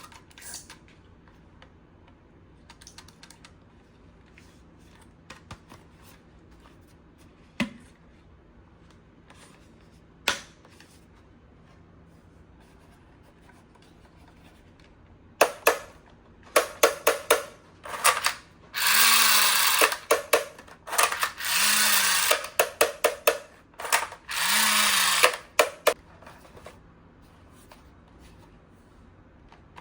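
Toy blaster being handled and fired: scattered single clicks, then about halfway a quick series of loud clicks and three rattling bursts of about a second each.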